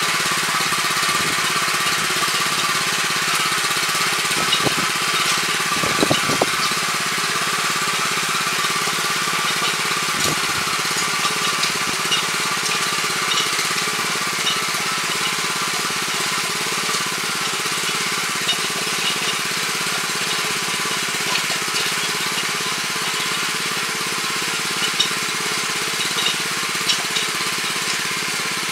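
Weima WM 900 7 hp tiller running steadily under load as its rotary tines churn hard, compacted soil, with a few sharp knocks as the tines strike hard ground.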